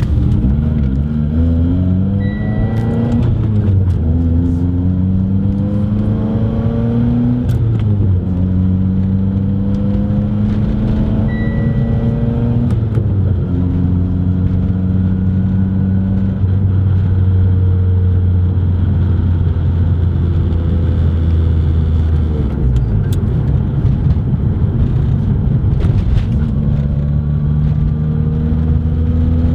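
Mitsubishi Lancer Evolution X's turbocharged 2.0-litre four-cylinder pulling away and accelerating, its pitch climbing and then dropping back at each upshift several times in the first half, then running at a steadier pitch. A short high beep sounds three times.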